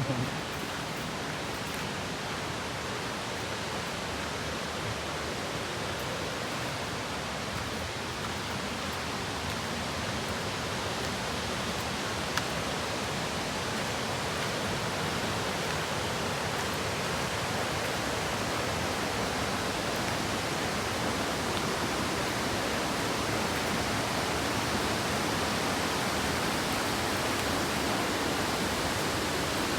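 Waterfall: falling water making a steady, even rush that grows slowly louder.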